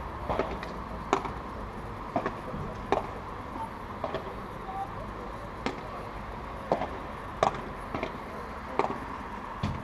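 A padel rally: the ball knocked back and forth by solid padel rackets and bouncing on the court, about a dozen sharp knocks at uneven intervals, roughly one a second.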